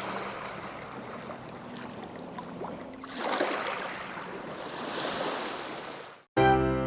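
Waves washing in, a steady rush that swells twice, cut off sharply near the end as piano music begins.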